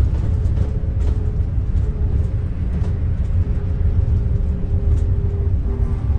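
Double-decker bus running, heard from on board: a heavy low rumble with a steady whine over it.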